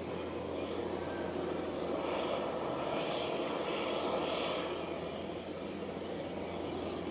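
Boeing 737-400 freighter's CFM56 jet engines running steadily at low power, with a higher hiss that swells for a few seconds in the middle.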